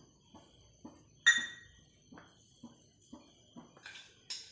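Small stainless-steel idli cups tapping and clinking as they are handled and brushed with coconut oil using a silicone brush. One bright, ringing metallic clink comes about a second in, among light taps.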